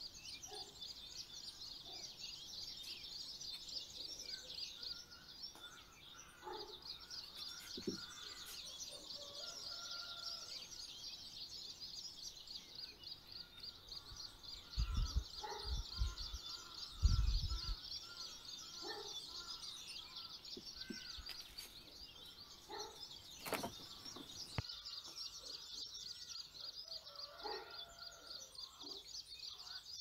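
Steady, fast high-pitched chirping of outdoor wildlife, faint throughout, with a few low thumps near the middle and a sharp click a little later.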